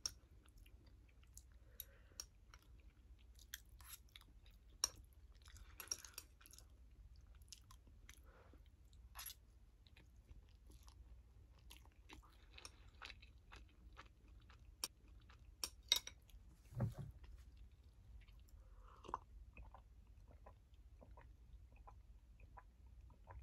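A person chewing instant noodles, faint and close-miked: soft, wet mouth clicks and smacks scattered throughout, with a few louder smacks along the way.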